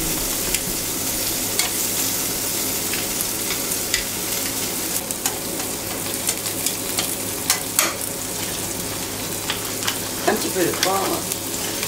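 Butter and vegetable ribbons sizzling on a hot steel plancha griddle, with a steady hiss. Metal tongs click and scrape against the griddle now and then as the vegetables are tossed.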